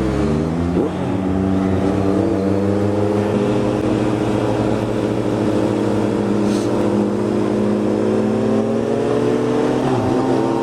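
Honda CB650F inline-four motorcycle engine pulling away, with a gear change in the first second, then running at a steady engine speed.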